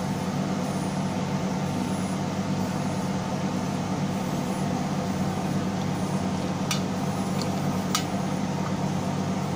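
Steady low hum of running machinery in a boat's engine room, with two short clicks near the end as a strap wrench is fitted around the oil filter.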